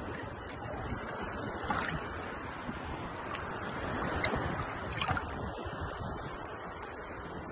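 Ocean waves and surf: a steady rushing of water, with a couple of brief louder swishes about two and five seconds in.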